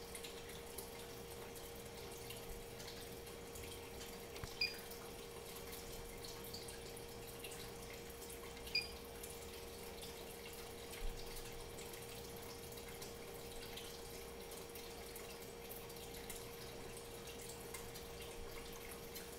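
Faint room tone: a steady electrical hum over a low hiss, broken by three short, high ticks a few seconds apart.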